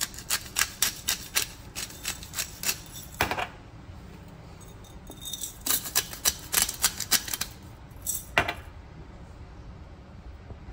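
Handheld twist-top spice grinder cranked in quick clicking strokes, grinding pepper and pink Himalayan salt. The clicking comes in two bursts with a pause of about two seconds between them, and one last click after that.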